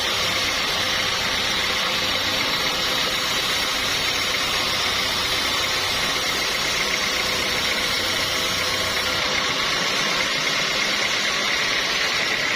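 Sawmill machinery running steadily, an engine-like hum with a constant high tone over it.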